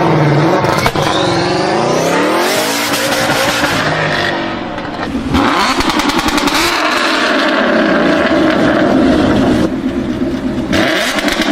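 Tuned turbocharged car engines revving hard with rapid popping and crackling from the exhaust, typical of 2-step launch control and antilag. The engine note climbs in the first few seconds, and the sound changes abruptly twice as one car gives way to another.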